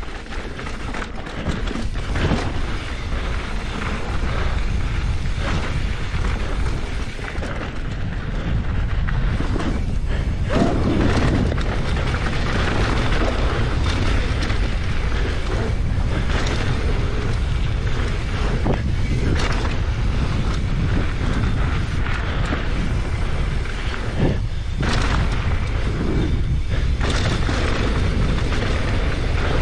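Wind buffeting the microphone of a mountain bike rider's camera at speed on a fast descent, a steady low rumble under the rush of tyres on the trail. Occasional sharp knocks come through, about a dozen across the run.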